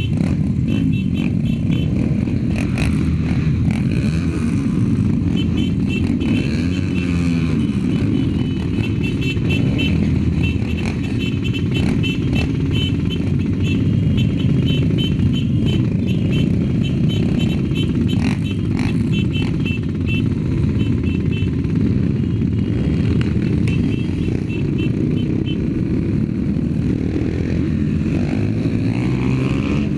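Trail motorcycle engines running steadily as a group of off-road bikes rides together, heard from the rider's own bike with heavy wind rumble on the helmet-mounted microphone.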